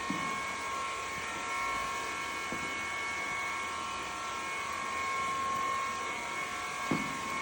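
A steady mechanical whine, several fixed high tones over a constant hiss, with a few soft low thumps, the clearest one near the end.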